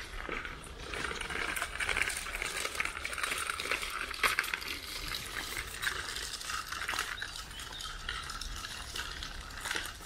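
Footsteps and rustling on a forest path strewn with dry leaves and twigs: a continuous crackle with a few sharper snaps.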